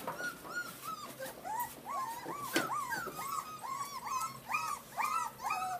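A litter of young puppies whining and yelping together, many short rising-and-falling cries overlapping at several a second: hungry puppies waiting to be fed. One sharp knock about halfway through.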